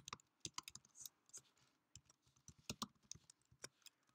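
Faint, irregular key clicks of someone typing on a computer keyboard.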